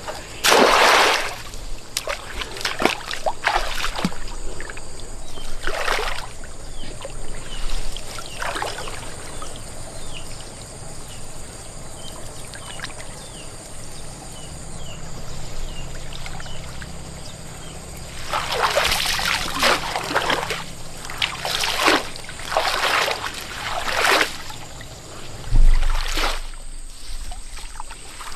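Water splashing and sloshing in a series of short bursts, with quieter trickling between them.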